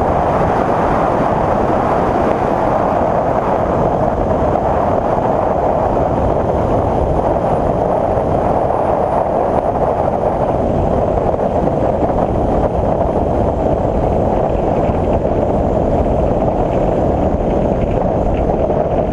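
Bristell NG5 light aircraft's engine and propeller running steadily as it rolls along a grass airstrip, mixed with wind noise on the microphone.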